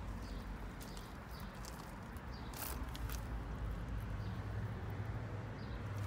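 Carrier 38CKG air-conditioning condensing unit with a Copeland scroll compressor running: a steady low hum from the compressor and condenser fan, with a few light clicks over it.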